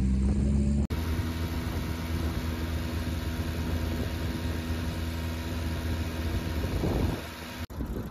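Motorboat engine running steadily, a low hum under wind and water noise, cut off abruptly twice where shots change.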